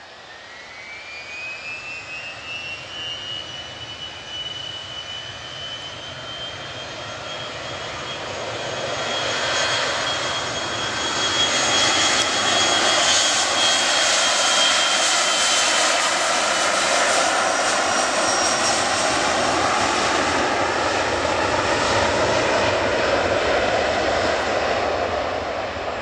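Boeing 737-300 jet's CFM56-3 turbofan engines spooling up to takeoff power for the takeoff roll: a whine rises in pitch over the first few seconds, then holds while the engine rush grows much louder and stays loud as the jet accelerates down the runway.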